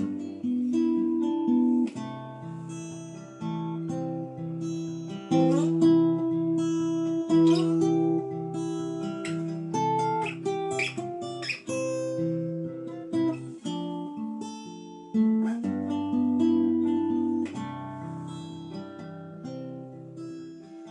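Acoustic guitar playing the instrumental introduction to a song, a run of plucked and strummed chords with changes every second or two.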